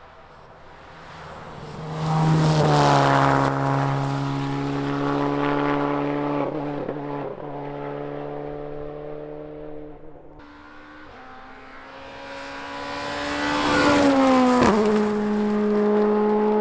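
Two rally cars going past at speed, one after the other: engine notes rising in level as each approaches, then dropping in pitch as it goes by, the first about three seconds in and the second, with a sharper drop, near the end.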